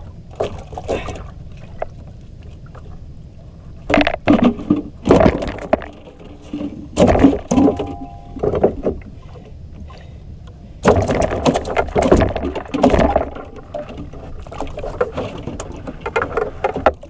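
Irregular knocks, clatter and rustling of handling aboard a small outrigger fishing boat, over a steady low rumble; the loudest cluster comes about eleven seconds in.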